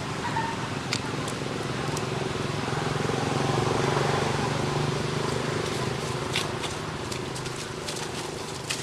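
A steady low engine hum that swells to its loudest about halfway through and then fades, as of a motor vehicle passing. A few light clicks and rustles of dry leaves under the monkeys are heard, more of them near the end.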